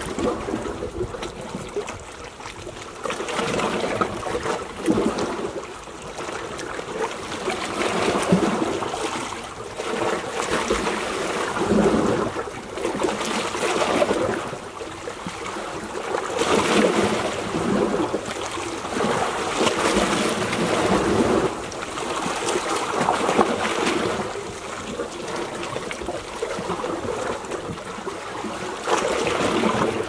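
Small sea waves lapping and washing against shoreline rocks, the sloshing swelling and easing every few seconds.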